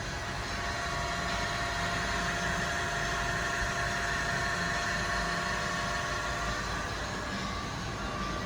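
Kent KGS-300AHD automatic hydraulic surface grinder running: a steady machine hum with a whine of several even tones.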